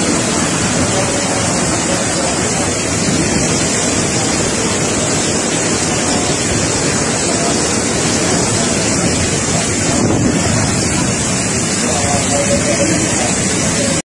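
Typhoon wind and driving rain: a loud, steady rush that cuts off suddenly near the end.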